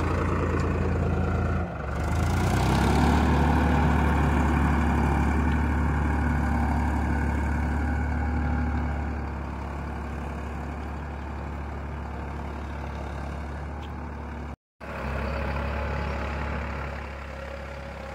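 Tractor engine running steadily while ploughing. It gets louder about two seconds in and eases off around halfway, and the sound drops out completely for an instant about two-thirds of the way through.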